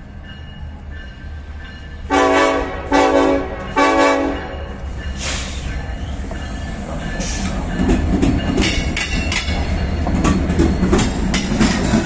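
Ferromex diesel freight locomotive's air horn sounding three short blasts about two seconds in. The locomotives' engines then rumble louder and the wheels clatter over the rails as the train passes.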